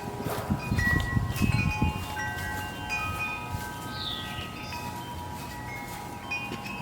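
Chime-like ringing tones, many notes of different pitch starting at staggered times and fading out, with some low knocking and rustling in the first couple of seconds.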